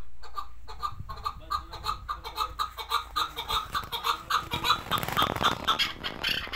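Chukar partridge calling: a fast run of short clucking notes, about four or five a second, growing louder and busier past the middle.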